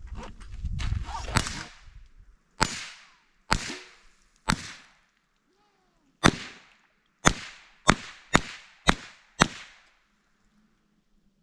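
.22 LR rifle shots, about ten in all. The first crack sits inside a low rumbling noise in the opening two seconds. Single shots follow a second or two apart, then a quick string of five about half a second apart.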